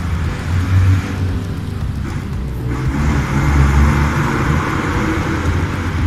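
Motor vehicle noise: a steady heavy low rumble, swelling about a second in and again around the middle.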